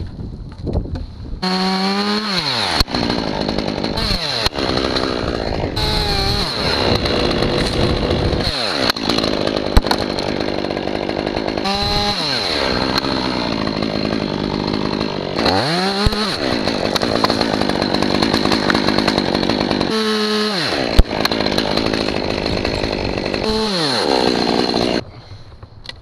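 Chainsaw cutting through maple trunk wood, its engine revved up and down several times, with a couple of sharp knocks along the way. It stops about a second before the end.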